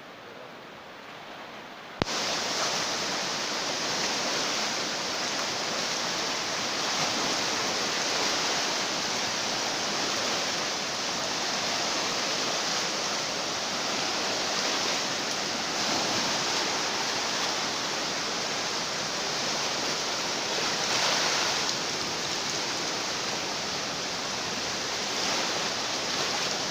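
Floodwater rushing under heavy rain: a steady, loud hiss of water that jumps suddenly louder with a click about two seconds in.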